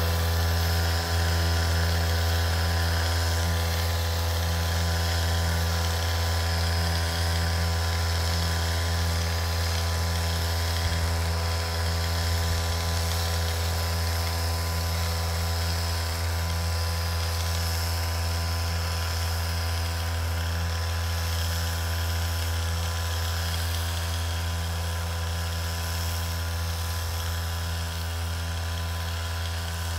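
Motorized backpack sprayer's pump running with a steady, even hum while spraying crop protection on bean plants, fading slightly toward the end.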